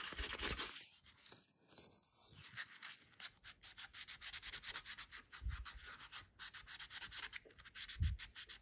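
800-grit wet/dry sandpaper rubbed by hand over an old Rapala fishing lure in quick back-and-forth strokes, scuffing the old finish to rough it up for paint. There is a brief lull about a second in and two dull knocks in the second half.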